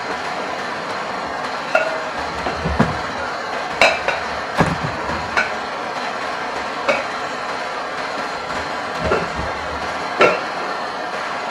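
Copper magnet wire being hand-wound into the slots of an electric motor stator: irregular light metallic clicks and clinks, some with a short ring, as the wire and hands knock against the aluminium housing, over a steady background noise.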